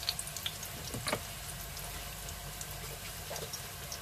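Eggplant omelette sizzling in a pan of oil, with scattered small crackles and one sharper pop about a second in.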